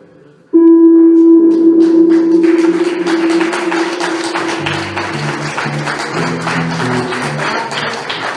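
Electronic noise music: after a faint fade, a loud held tone breaks in suddenly, then thickens into a dense crackling wall of noise with rapid clicks, joined by a pulsing low tone in the second half.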